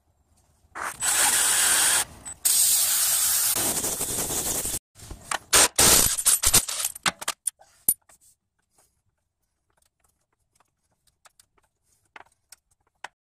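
Milwaukee M12 Fuel cordless impact driver hammering a bolt through a socket: two long runs, then several short bursts, followed by a few faint clicks.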